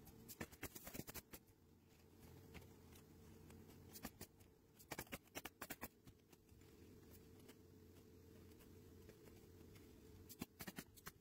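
Near silence, with a few faint clusters of small clicks and scratches.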